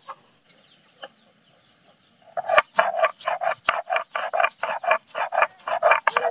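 Stone roller of a sil-batta grinding stone scraping back and forth over cumin and mustard seeds on the wet stone slab, grinding them to a paste. It starts a little over two seconds in, in quick, even strokes of about four a second.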